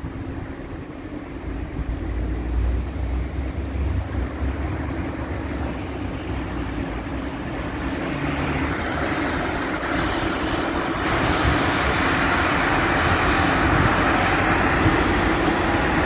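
Steady outdoor rushing noise of wind and road traffic. It slowly grows louder and hissier over the span.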